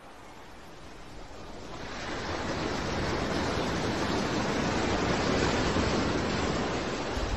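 Rushing noise of wind and sea waves on open water, swelling over the first two or three seconds and then holding steady.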